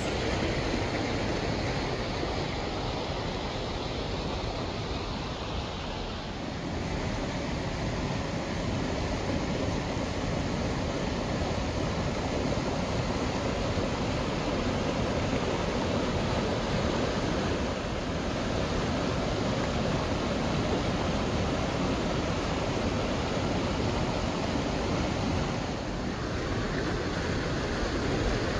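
A river rushing over rocks in small rapids: a steady, unbroken rush of water.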